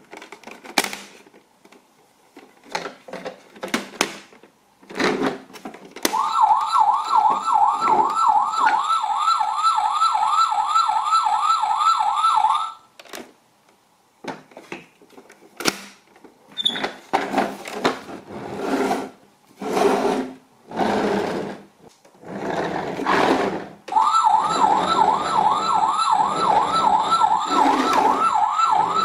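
Toy ambulance's battery-powered electronic siren, a fast warbling wail of about four sweeps a second, sounding twice for several seconds each. In between come clicks and knocks from the plastic toy being handled.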